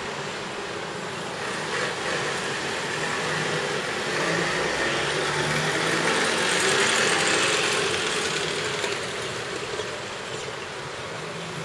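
A motor vehicle passing, its engine and road noise swelling over several seconds and then fading back to a steady background hum.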